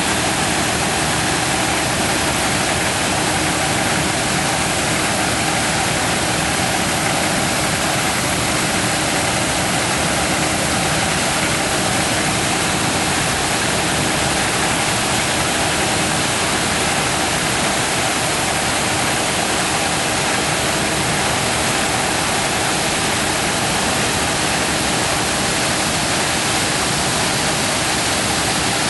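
Combine harvester running steadily while harvesting corn: a loud, even wash of machine noise with a faint steady hum underneath.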